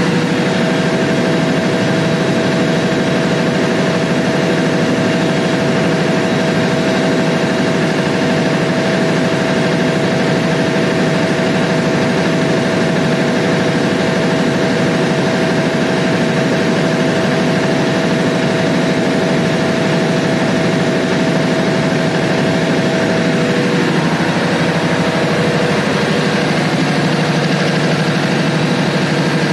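Large Cummins diesel generator set running steadily off-load, a loud even engine drone with no change in speed.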